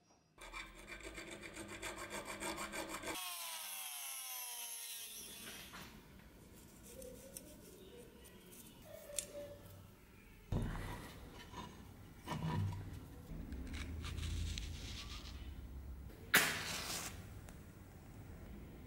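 Hand filing of a beech-wood dagger handle: quick, even back-and-forth strokes of a file on wood, about five a second, followed by slower intermittent rubbing and knocks. A short, loud burst near the end, as a match is struck.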